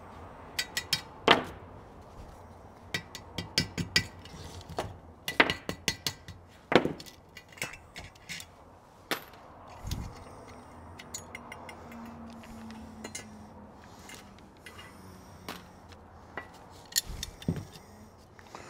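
Small metal carburetor parts and a hand tool clinking and tapping as the carburetor is worked apart by hand: irregular light clicks and knocks, some with a short metallic ring.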